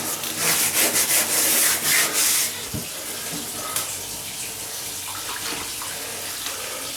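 Water splashing and pouring in irregular gushes for about two and a half seconds, then stopping, leaving only a faint steady background.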